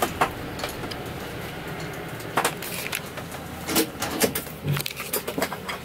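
Cab noise of a U-Haul box truck's Ford V10 engine running as the truck rolls slowly, with a low, steady rumble and scattered clicks and knocks from the cab.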